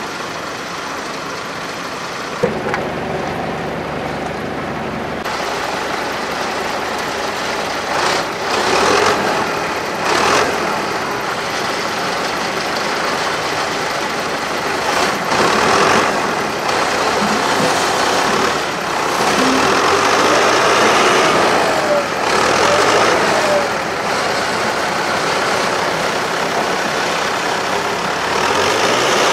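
The TAF articulated forestry skidder's 160 hp MAN diesel engine running and revving up several times under load as the winch drags felled logs in on the cable.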